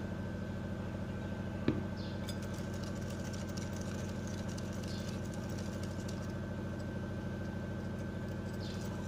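A steady hum with several fixed pitches runs throughout. A wire whisk stirs flour into batter in a glass bowl, with one knock against the bowl a little under two seconds in and faint light scraping ticks after it.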